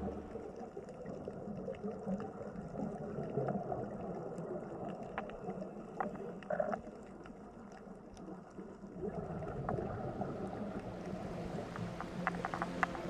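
Gentle water sound: a steady, soft rushing and gurgling with a few faint clicks scattered through it.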